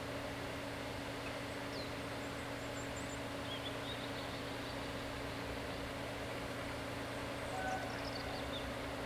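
A steady low hum with a faint rushing background, while small birds chirp briefly now and then.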